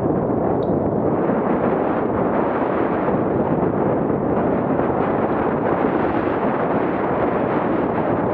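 Steady rushing noise of wind buffeting an action camera's microphone, mixed with the mountain bike's tyres and frame rumbling over a rough dirt trail on a fast downhill run.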